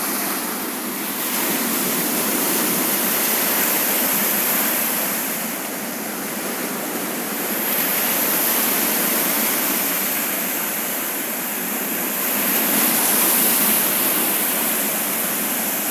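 Baltic Sea surf washing onto the shore: a continuous rushing that swells and eases every five or six seconds as waves break.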